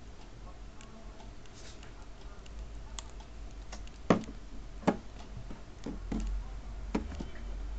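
Light, irregular clicks and taps of hands handling an iPhone and its cardboard box, with two sharper clicks about four and five seconds in.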